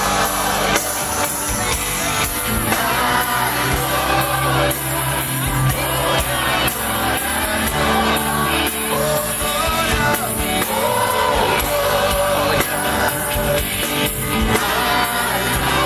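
Live amplified gospel band with a man singing into a microphone over electric bass and band.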